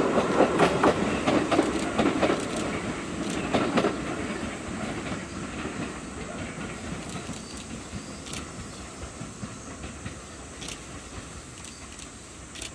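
Sotetsu 20000 series train cars, hauled unpowered behind a locomotive, rolling away over the rail joints. The wheels click rapidly at first, then the clicks thin out to single ones every couple of seconds as the sound fades with distance.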